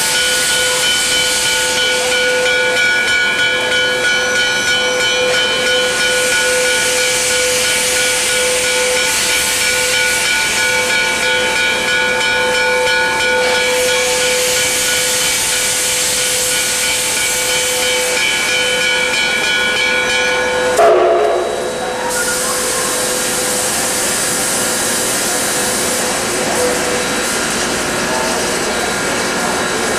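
Canadian National No. 3254 steam locomotive hissing loudly as steam escapes, with a steady whistling tone inside the hiss. About 21 seconds in there is a brief louder rush, then the whistling tone drops out while the hiss continues.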